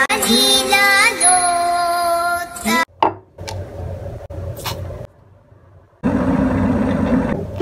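Background music with singing that cuts off about three seconds in, followed by a couple of clicks; near the end, an electric kettle heating water gives a steady rushing noise for over a second.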